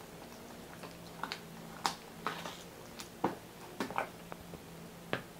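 Metal spoon stirring tomato purée and bread chunks in a plastic jug, with a few short sharp clicks as the spoon knocks against the jug's side.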